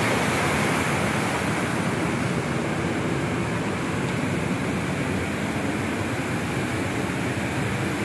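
River water rushing over rapids: a steady, even rush of water that eases slightly toward the end.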